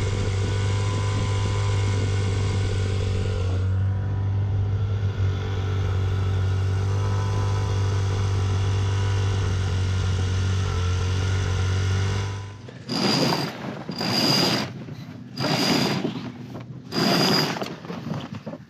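Outboard motor of the towing dinghy running steadily, then stopping suddenly about twelve seconds in. A sail is then hoisted: the halyard is hauled in about five quick pulls, each a short rasping whir with a thin whistle, running through the blocks.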